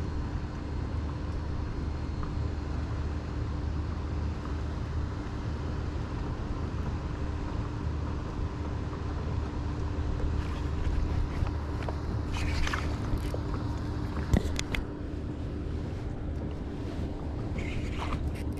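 Steady low motor-like rumble with a faint steady hum, and a few short knocks and clicks in the second half.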